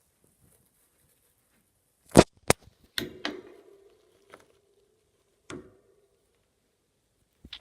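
A few sharp knocks and taps in a hamster's cage, two close together about two seconds in, then more spaced out; one knock leaves a faint ringing tone that fades over a couple of seconds.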